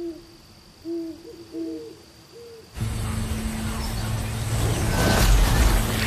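Owl hooting several short times, the sound of a moonlit night. About three seconds in, a steady low hum with a hiss starts suddenly, louder than the hoots, and swells near the end: a magic energy effect as glowing ice-and-fire power is worked into a scroll.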